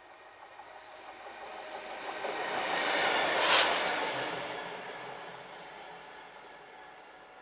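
Class 66 diesel locomotive running light (no train behind it) past at speed. The rumble of its passing builds, peaks in a brief rush about three and a half seconds in as the cab goes by close, then fades as it draws away.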